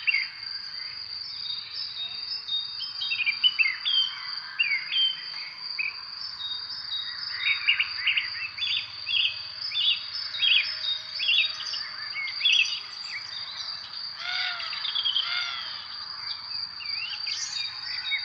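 Several birds chirping and calling in quick, overlapping phrases over a steady high-pitched insect drone, with a few lower, arching calls about two-thirds of the way through.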